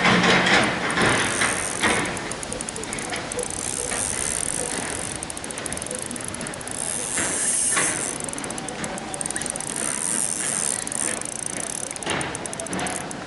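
Spinning reel being cranked to retrieve a lure, its gears whirring with fast, fine ticking that comes and goes as the handle turns. A few louder clicks and knocks come in the first couple of seconds.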